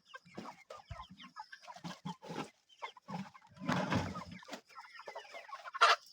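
A flock of broiler chickens clucking and calling in short, overlapping calls, with a louder noisy stretch lasting about a second, starting about three and a half seconds in, and one loud call near the end.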